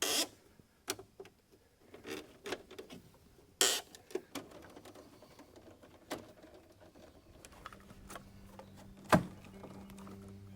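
Hand-work noises from tools and hardware: scattered clicks and a few short scrapes, with a sharper knock about nine seconds in.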